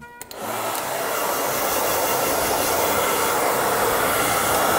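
Handheld electric hair dryer switched on about a third of a second in, building up over half a second, then blowing steadily.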